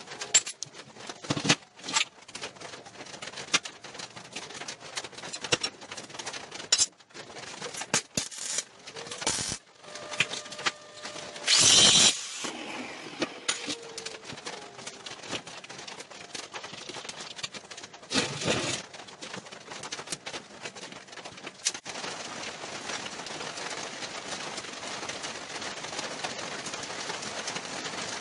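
Steel parts handled on a steel welding table: scattered clanks, clinks and knocks, with a loud harsh burst a little before halfway and a shorter one a few seconds later. A steady hiss takes over for the last several seconds.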